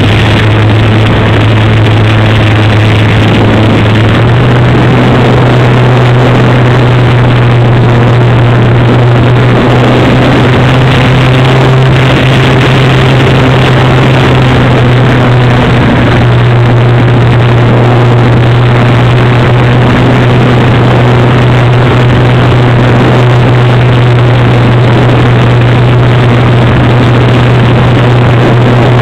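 Electric motor and propeller of a Dynam Super Cub RC plane, a loud steady drone picked up close by a camera mounted on the plane. The drone's pitch steps up about four seconds in as the throttle is opened a little, then holds level.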